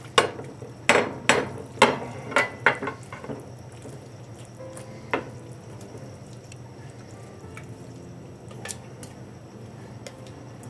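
Sharp clinks and knocks of a spatula and a stainless steel mixing bowl against each other and a glass baking dish while a cauliflower mixture is scraped out. There is a quick run of about seven in the first three seconds, then single knocks about five and nine seconds in, over a steady low hum.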